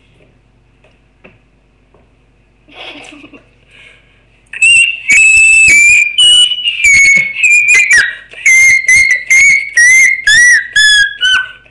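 Quiet for about four seconds, then loud, high-pitched whistling close to the microphone: a run of many short whistled notes that slide gradually lower in pitch.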